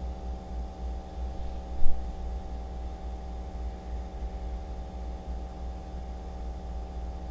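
PC cooling fan running steadily at about 1150 rpm, giving a low steady hum with several fixed tones. A single brief knock sounds about two seconds in.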